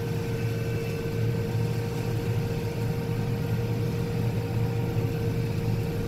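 Combine harvester running under load while cutting soybeans, heard from inside the cab. It makes a steady low engine and machinery hum with a constant mid-pitched whine over it.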